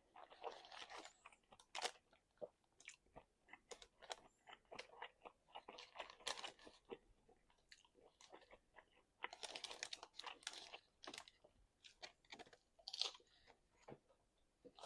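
A person chewing and biting food: irregular crunches and mouth clicks that come in denser clusters about a second in, around six seconds in and around ten seconds in.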